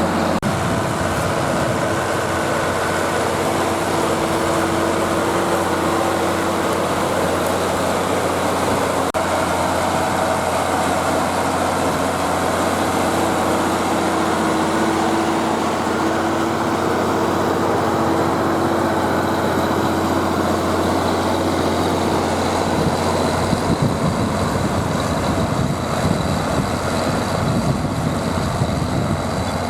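Zetor Crystal 12145 tractor's diesel engine running steadily under load, pulling a five-furrow plough through wet ground. Near the end the steady engine note gives way to a rougher low rumble.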